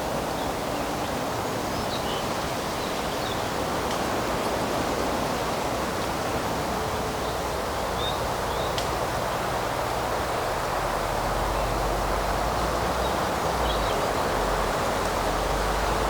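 Steady rushing outdoor ambience of a woodland, with faint bird chirps now and then and a low rumble that comes in about ten seconds in.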